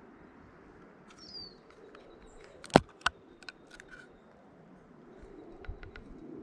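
Two sharp clicks close together about halfway through, followed by a few lighter taps, over a faint steady outdoor hiss with birds chirping.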